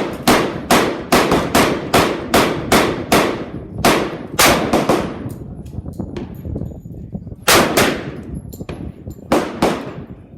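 .45 ACP semi-automatic pistol fired in rapid strings, shots about a third of a second apart, with a pause of about two and a half seconds near the middle before a few more shots.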